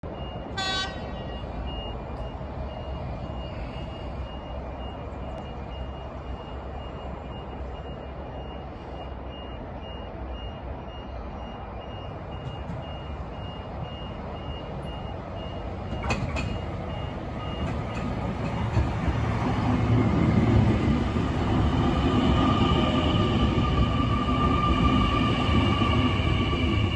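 A faint high beep repeats at an even pace over low background noise. From about 18 seconds in, a New Intercity Fleet electric train comes into the platform: its rumble rises and a steady whine of several pitches sounds as it slows.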